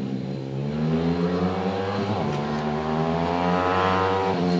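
A Honda CRF50-based minimotard's small single-cylinder engine revving hard on track. The pitch climbs steadily for a couple of seconds as it accelerates, then drops sharply near the end.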